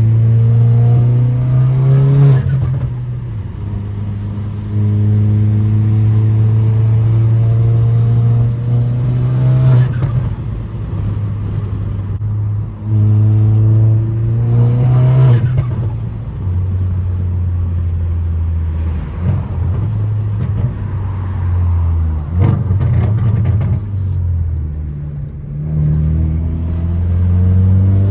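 Tuned Volkswagen Golf GTI's turbocharged 2.0-litre four-cylinder, straight-piped through a muffler delete and catless downpipe, pulling hard through the gears: the engine note climbs in three runs and drops sharply at each shift about 2, 10 and 15 seconds in, with turbo flutter as the throttle lifts. After that it runs lower and steadier, with a couple of brief sharp bursts near the end.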